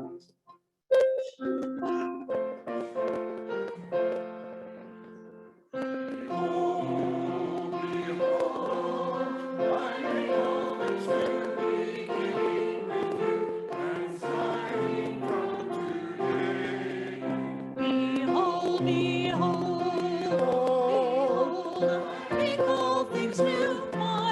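Piano playing slow chords, with a brief dropout in the sound near the start. About six seconds in, voices join to sing a hymn over the piano accompaniment.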